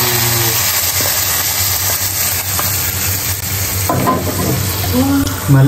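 Cashews and raisins frying in hot ghee, a steady sizzle with stirring.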